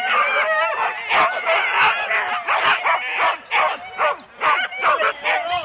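Many Siberian Huskies in harness barking over one another, with sharp barks several times a second among drawn-out, wavering pitched cries: the excited clamour of sled dogs waiting to run.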